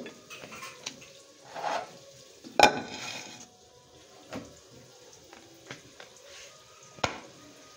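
Metal cookware handled on a stove: a loud ringing clang about two and a half seconds in as a metal pan is set down, then lighter knocks and taps, and another sharp clank near the end.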